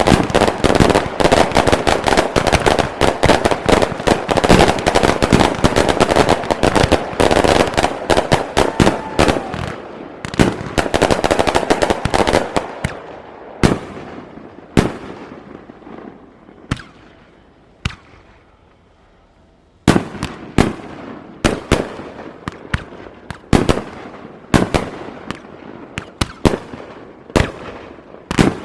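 Aerial fireworks display: a dense rapid barrage of bangs and crackle for about twelve seconds, thinning to separate booms, a brief lull, then single shell bursts about once a second.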